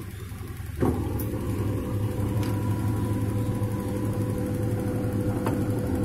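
LG WF-T7012EN top-load washing machine: a clunk about a second in, then the machine runs with a steady hum and a faint whine. The lid's door magnet, which had rusted and brought up the dE error, has just been glued back on.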